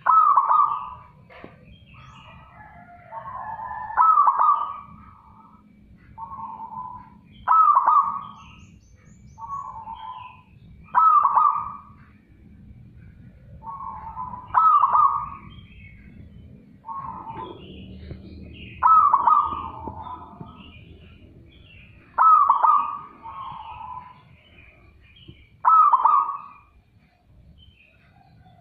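Caged zebra dove (perkutut) cooing over and over, a loud, clear phrase about every three to four seconds, with softer phrases between some of them.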